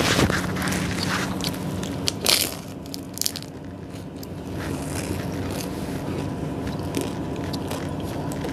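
Close-miked biting and chewing of a pizza bread roll, with a few sharp crackly bites, the loudest about two seconds in, then softer chewing over a steady low background hum.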